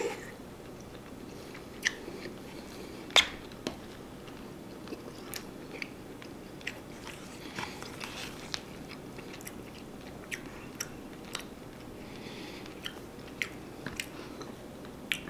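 Metal fork clicking and scraping against a frozen-meal bowl as food is picked through. About a dozen scattered sharp clicks, the loudest about three seconds in.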